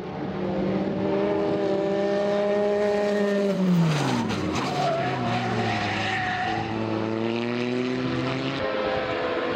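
Historic single-seater racing car engine running at high revs, then the revs drop sharply with a few crackles about four seconds in as the driver lifts off. It then holds a lower, steady note. The engine note changes abruptly near the end.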